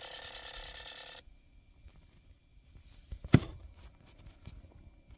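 Small actuator motors moving the Tesla Model Y's flaps, whirring steadily and stopping abruptly about a second in. A little past halfway comes a single sharp click or knock, the loudest sound, followed by a few faint ticks.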